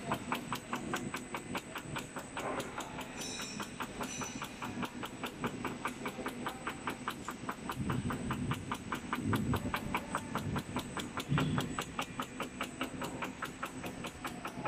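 Roll-fed label die-cutting machine running, with a steady rhythmic clicking at about four clicks a second. A few dull low thumps come around the middle.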